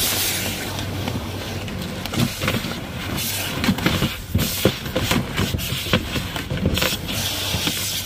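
Automatic car wash jets spraying water over the car, heard from inside the cabin: a loud rushing hiss broken by irregular splattering hits, over a steady low hum.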